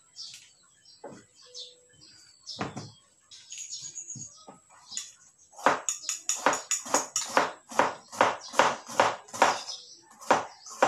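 Knife slicing bitter gourd on a plastic cutting board: a few scattered clicks and clinks at first, then from about halfway a steady run of chopping strokes, about three a second.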